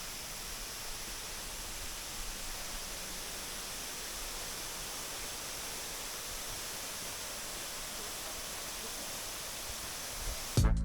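Steady, even rushing noise outdoors, with no separate events in it. Loud music cuts in at the very end.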